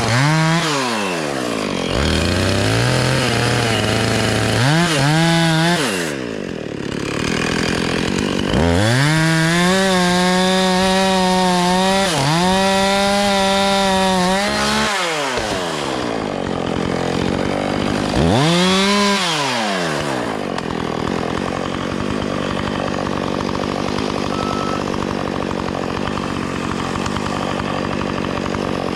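Gas chainsaw revving up and down in short bursts, then held at high revs for several seconds while cutting limbs. After a final rev it drops back to a steady idle.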